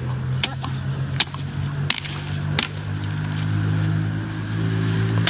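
A machete chopping at woody plant stems: about five sharp blows in the first three seconds. Under them runs the steady drone of an engine, which grows a little fuller in the second half.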